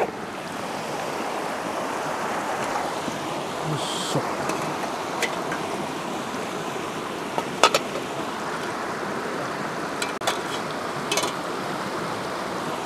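Shallow mountain river running over rocks, a steady rushing, with a few light clicks and clinks as a metal mess tin on a camp stove is handled.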